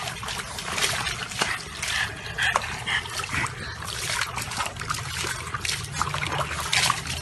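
Water splashing and sloshing in a plastic tub as a dog moves about in it, with water spilling over the rim and spattering onto concrete in quick irregular bursts.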